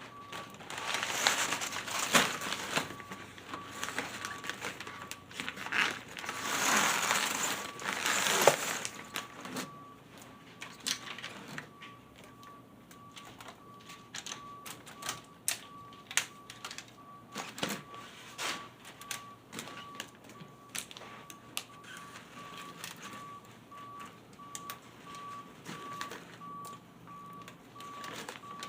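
Crinkling, rustling handling noise for the first several seconds, then scattered light clicks and knocks, with a faint high tone pulsing evenly on and off throughout.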